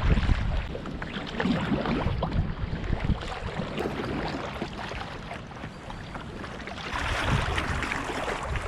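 Paddle strokes splashing and dripping in fast-flowing river water, with wind rumbling on the microphone. A louder rush of splashing comes about seven seconds in.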